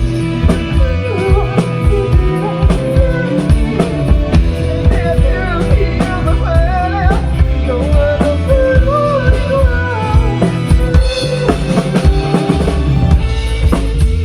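A rock band playing: a drum kit keeps a steady beat with kick and snare under a bass line, with a bending, wavering melodic lead line above.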